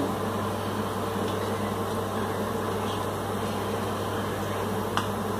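A steady mechanical hum and hiss, with faint clinks of a steel ladle against the pot, the clearest about five seconds in.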